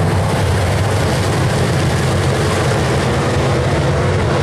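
Several dirt late model race cars running together around a clay oval, their V8 engines making loud, steady, continuous engine noise.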